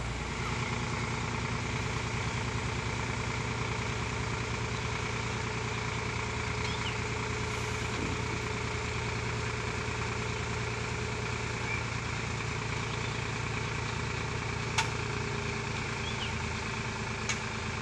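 Tractor diesel engine running steadily while its hydraulic trolley tips a load of sand off the back. Two short sharp clicks sound late on.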